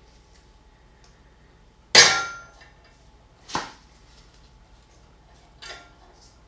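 Three metallic clanks: the loudest, with a short ring, about two seconds in, then two softer ones. The steel lifting chains and shackles knock as a cast iron surface plate rolls over on its chain sling.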